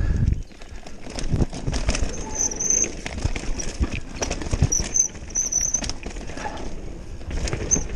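Mountain bike ridden fast down a dirt trail: the tyres rumble over the ground while the bike rattles and knocks over bumps, with a heavy thump right at the start and a few short high squeaks.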